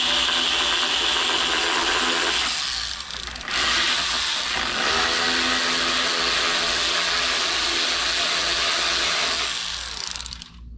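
Air ratchet running in two long spells with a short break about two and a half seconds in, backing out the two 8 mm screws of the air filter cover on a portable generator. It stops near the end.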